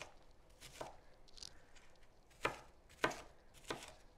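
Butcher knife chopping an onion on a wooden cutting board: four separate sharp knife strikes at uneven intervals.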